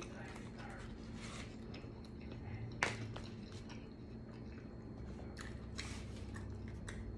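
Quiet eating and table-handling sounds: soft chewing with a sharp click about three seconds in, as a tortilla is laid on a paper plate, and a few lighter ticks near the end, over a low steady hum.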